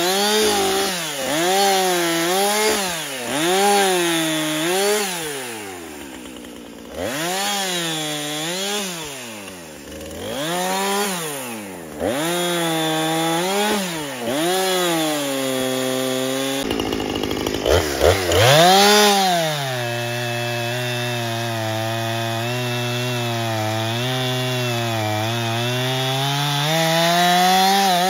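Gas chainsaw revving up and dropping back again and again in short bursts while cutting limbs from a fallen tree, then, about two-thirds of the way in, held at high revs through a long cut into the trunk, dipping slightly as the chain bites.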